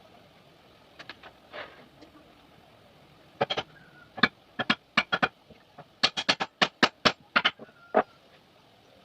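Hammer striking wood: a run of about twenty sharp, quick knocks in irregular groups, starting a few seconds in. A few faint scrapes come before them.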